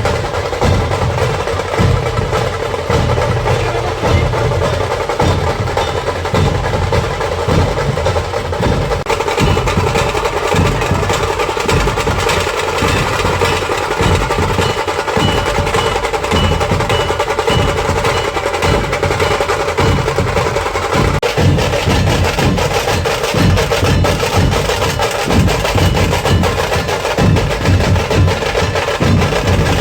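Drum troupe playing loud, fast, unbroken drumming, with a quick rattling roll over heavy bass beats.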